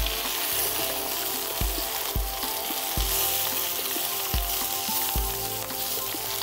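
Vegetable scraps sizzling in hot oil in a cast-iron pan, stirred with a wooden spatula that knocks against the pan every second or so. The oil is being worked over the whole pan and up its rim to season (burn in) the new cast iron.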